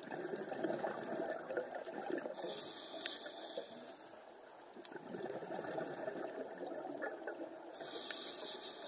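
Underwater bubbling of a scuba diver's exhaled air from the regulator, in two spells with a lull about four seconds in. A high hiss comes in twice, about two and a half seconds in and near the end.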